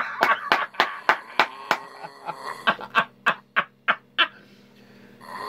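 A man snoring with a sputtering rattle of sharp, irregular pops that sounds like a weed eater running. The pops come quickly at first, thin out, and stop about four seconds in.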